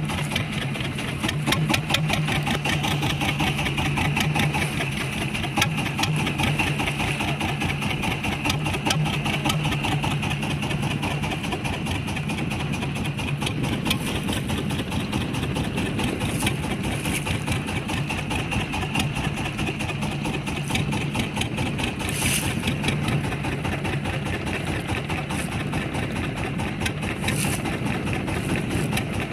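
Fishing boat's engine running steadily at a low, even speed, a continuous hum with a rapid, regular firing beat.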